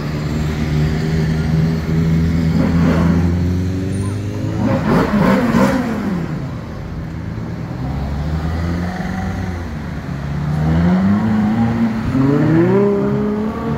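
Supercar engines driving past one after another. A car revs hard about five seconds in. Near the end a Ferrari 812 GTS's V12 accelerates away, its pitch climbing steadily.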